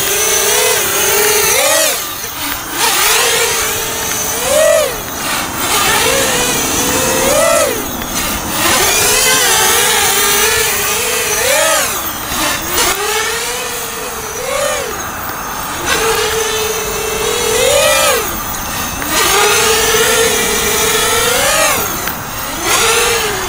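Racing quadcopter's DYS 2206 2000 kV brushless motors and propellers whining in flight. The pitch climbs sharply and drops back again and again as the throttle is punched.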